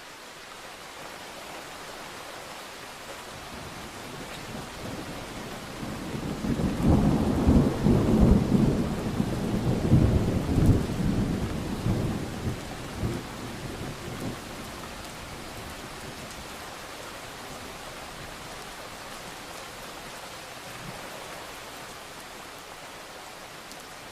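Steady rain falling, with a roll of thunder that builds about six seconds in, rumbles and crackles loudest for several seconds, then dies away into the rain.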